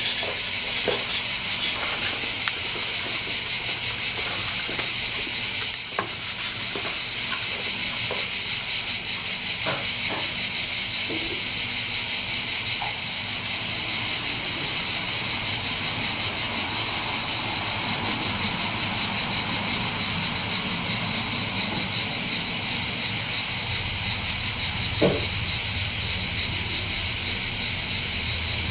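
Cicadas singing in a loud, steady chorus, a high buzzing drone, with a few faint clicks and knocks.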